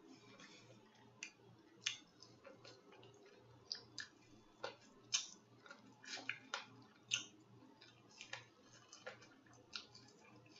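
Mouth smacking and chewing close to the microphone while eating: irregular wet smacks and clicks, several a second, the sharpest about two, five and seven seconds in.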